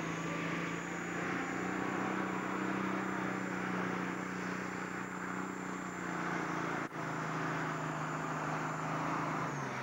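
Diesel engine of a pulling tractor running flat out under full load as it drags the weight sled, holding a steady pitch. The sound cuts out for an instant about seven seconds in.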